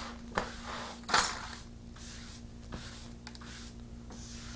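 Pieces of broken window glass clinking and knocking as they are gathered up, a few separate clatters with the loudest about a second in, over a faint steady hum.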